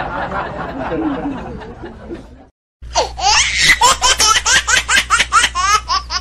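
Rapid high-pitched laughter, short bursts at about four a second, starting about three seconds in after a brief break. Before it, a fading noisy sound.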